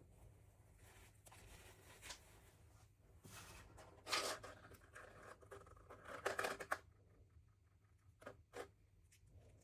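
Quiet rustling and scraping from handling craft materials or packaging, in two longer bursts, with a couple of short light clicks near the end.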